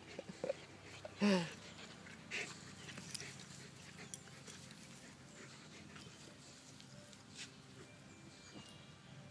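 A wolf hybrid and a German Shepherd puppy play-fighting. A few short dog calls come in the first second and a half, the loudest one about a second in, then only faint scuffling clicks.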